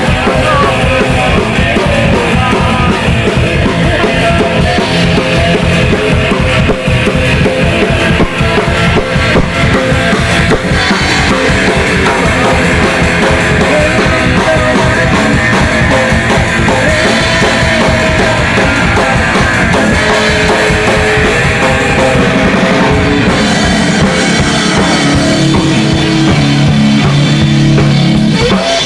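Rock band playing a fast heavy metal song at full volume: driving drum kit with electric bass and guitar. Held low chords ring out near the end.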